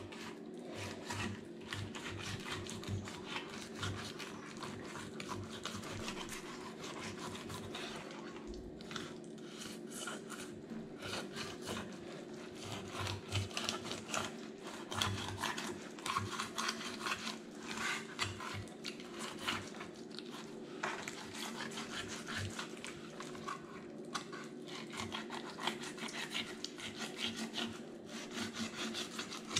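Fillet knife slicing along a snakehead's backbone, a long run of short, irregular scraping strokes as the blade works through the flesh and over the bones.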